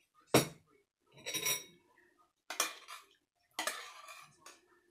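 Metal spoon clinking and scraping against a stainless steel saucepan as food is spooned out of it onto a plate of noodles: a sharp clank about a third of a second in, then several lighter clinks.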